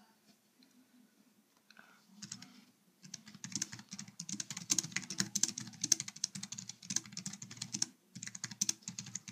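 Fast typing on a 1byone pocket-size folding Bluetooth keyboard: rapid runs of key clicks starting about three seconds in, with a brief pause near the end.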